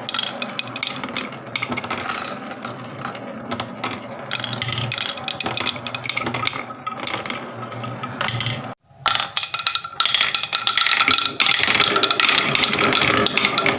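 Marbles rolling and clattering down a wooden marble run: a dense stream of clicks and rattles. The sound cuts out for a moment about nine seconds in, then comes back busier and louder.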